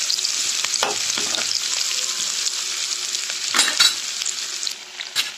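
Chopped onions, green chillies and crushed garlic sizzling in hot oil in a pan while a spatula stirs and scrapes them, with a couple of louder scrapes past the middle. The sizzle drops quieter near the end.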